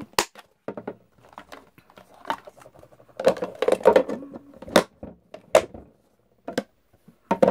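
Hard plastic food-container lids and tubs clicking and clattering as they are handled and set down, with several sharp knocks spread through and a denser stretch of rattling in the middle.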